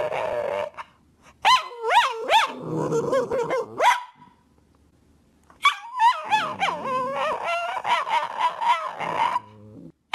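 Cavalier King Charles spaniel vocalizing in whining calls that swoop up and down in pitch. A short run of calls is followed by a pause of about a second and a half, then a longer run.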